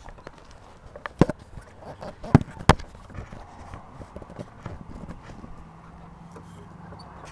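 Scuffing and crunching in wood-chip playground mulch, with three sharp knocks a little after one second and around two and a half seconds in. A low steady hum comes in after about five seconds.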